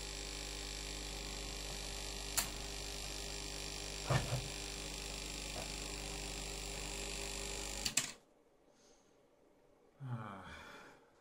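Steady electrical hum from running bench equipment, with a couple of light clicks, switched off with a click about eight seconds in, after which it goes nearly quiet. Near the end comes a brief low vocal sound that falls in pitch.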